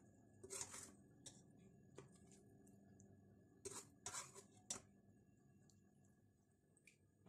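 Faint clinks and scrapes of a metal serving spoon against an aluminium pressure-cooker pot and a ceramic plate as cooked meat is dished out: about half a dozen soft strokes, three of them close together a little past the middle.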